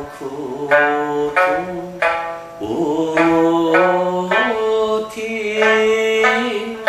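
Okinawan sanshin being plucked note by note while a man sings long, sliding held notes over it.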